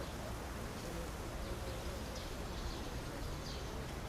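Quiet ambient background with a low steady hum and a few faint, scattered bird chirps.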